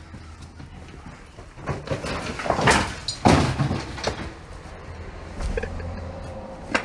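A man falling into a hole in a dirt path: a few scuffs, then a cluster of heavy thuds and scrapes about three seconds in, with smaller knocks after.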